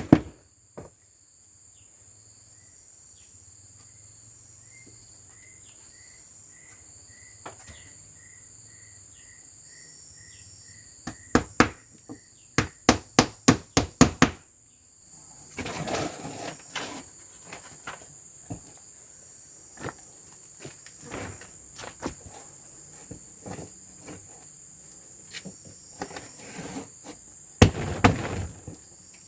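Sharp blows struck on wood, in quick runs of several strikes about a third of the way in and again near the end, with looser knocking in between. A steady high insect drone runs underneath, and a row of short, evenly spaced high chirps repeats over the first third.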